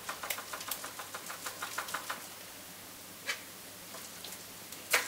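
Quick light scraping strokes, about five a second for two seconds, then two single knocks: a utensil working sticky cake dough out of a Thermomix's steel mixing bowl.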